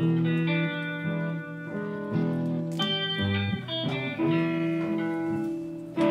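Background instrumental music with a steady run of sustained notes.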